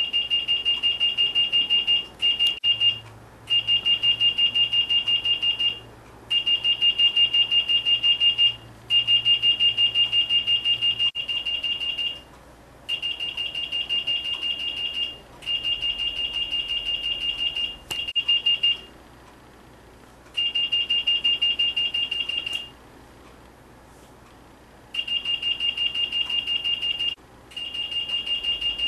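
Checkpoint QS2000 anti-theft pedestal alarm sounding a high, rapidly pulsing beep in about ten bursts of one to three seconds, with short, uneven gaps between them. This is the alarm that a shop-exit security system gives when it detects a security tag.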